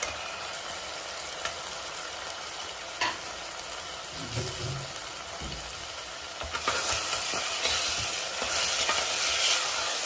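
Onions, green chillies and ginger-garlic paste sizzling in hot oil in a pan while a spoon stirs them, with a few clicks of the spoon against the pan. The sizzle grows louder about two-thirds of the way in.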